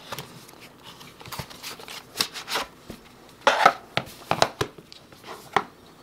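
Cardboard product box being opened and a clear plastic case slid out and handled: a run of scrapes, rustles and sharp clicks, loudest a little past halfway through.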